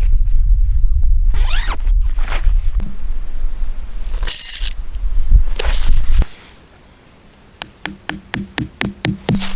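Scraping and zipper-like rasping over a steady low rumble, then a moment of quiet about six seconds in, and an electronic music beat with sharp regular clicks starting near the end.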